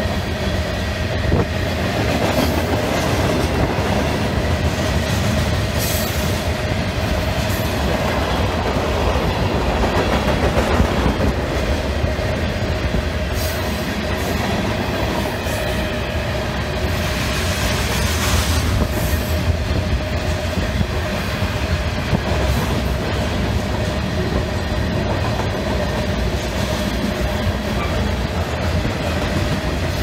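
Union Pacific freight train of covered hopper cars rolling steadily past, the wheels clacking over the rails, with strong wind buffeting the microphone.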